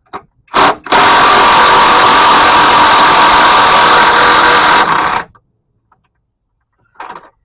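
A power impact wrench gives a short blip, then runs steadily for about four seconds, spinning a transmission crossmember bolt loose, and stops abruptly.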